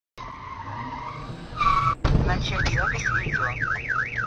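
Car alarm going off, its pitch sweeping up and down about three times a second, over a low rumbling noise; it starts about halfway through, after a short high squeal.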